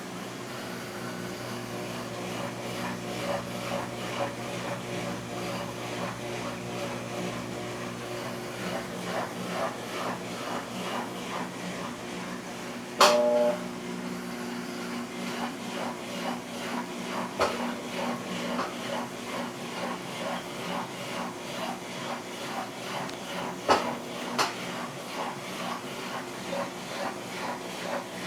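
Brastemp 14 kg washing machine running: a steady motor hum with a rhythmic pulse about twice a second, and a few sharp knocks, the loudest about halfway through.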